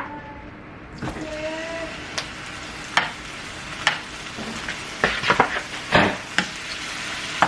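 Shrimp sizzling in a hot frying pan, the hiss starting suddenly about a second in, with a utensil knocking and scraping against the pan several times as they are stirred.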